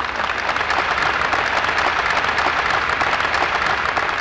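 A large audience applauding: dense, steady clapping that begins to ease near the end.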